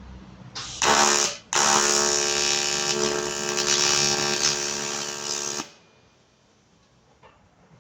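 TIG welding arc on aluminium, buzzing. It strikes about half a second in, breaks off for a moment, restarts and runs steadily for about four seconds, then stops.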